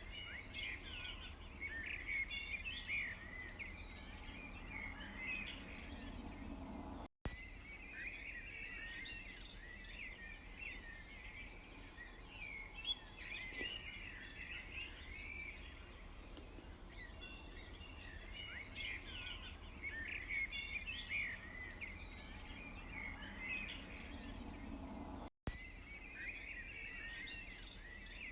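A dense chorus of songbirds chirping and twittering over a steady low background hum. The sound cuts out for a split second twice, about seven seconds in and near the end.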